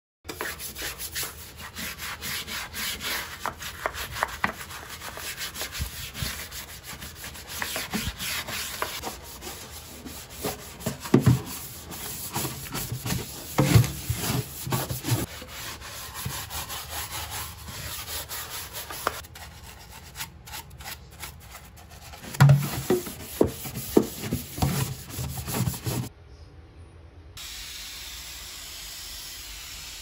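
Quick, irregular scrubbing strokes on a soapy stainless steel sink, with a few louder knocks. Near the end it gives way to a steady hiss.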